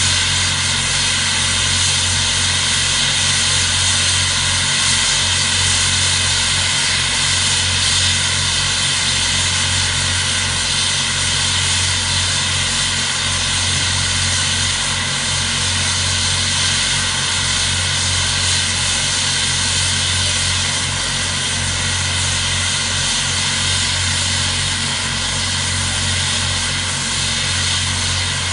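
Steady mechanical hum with a constant hiss from the Norfolk & Western Class J 611 steam locomotive standing with steam up.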